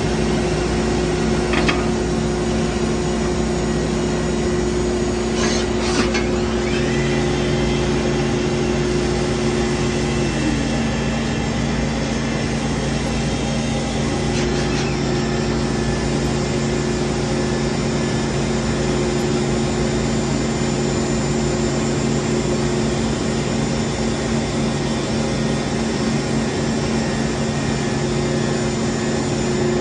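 Citizen K16E VII CNC Swiss-type lathe running, a steady machine hum with several motor tones. One tone slides down in pitch and stops about ten seconds in, then returns a few seconds later. There are a few short clicks in the first six seconds.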